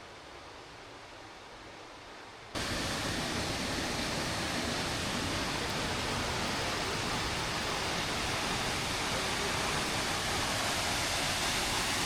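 Steady rushing water of the Älgaforsen waterfall, a dense even hiss. About two and a half seconds in it jumps suddenly much louder and fuller, then holds steady.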